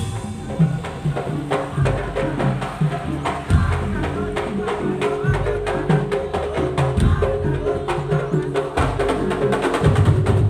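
Madurese tong-tong (daul) music: an ensemble of wooden slit drums and drums playing a fast, dense beat over a loud bass line that shifts every second or two.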